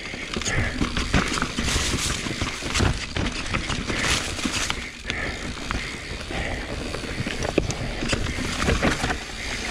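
Mountain bike being ridden over rough dirt singletrack: tyres rolling over dirt and rocks while the bike rattles, with frequent uneven knocks and clicks.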